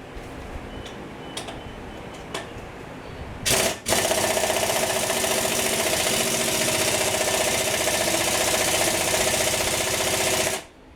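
Pneumatic impact wrench hammering on the last flywheel bolt of a Chevy 216 engine. It gives a short burst about three and a half seconds in, then runs steadily for about six and a half seconds and cuts off abruptly. The bolt does not break loose while the compressor's air pressure is low.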